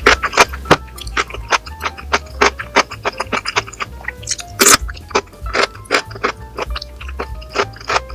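Background music with a steady, quick beat, short melodic notes and a bass line.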